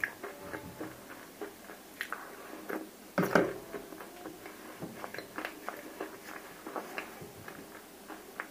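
Close-miked chewing of dry clay cubes coated in roasted nakumatt clay paste: a steady run of small, sharp crunches and crackles, with a louder crunch about three seconds in.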